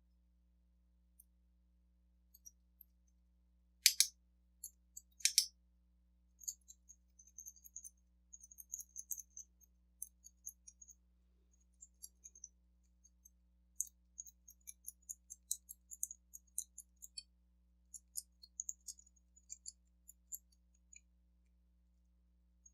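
Small metal tools working in a mortise lock cylinder's keyway as it is shimmed open for rekeying: two sharper metallic clicks about four and five seconds in, then many light, quick ticks and scrapes.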